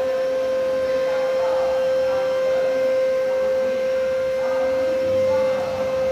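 A steady, single-pitched hum that holds one tone throughout, with faint music underneath.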